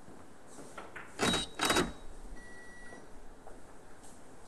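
Two short rushing noises, about a third of a second each, a little over a second in. About two and a half seconds in comes a faint electronic beep, plausibly from the hall's electronic scoreboard being updated.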